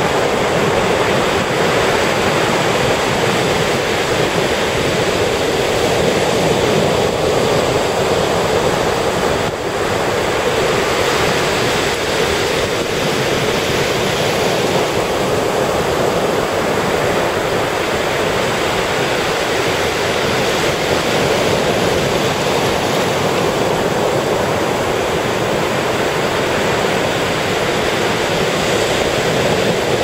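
Ocean surf breaking and washing up a sandy beach: a steady, loud rush of waves.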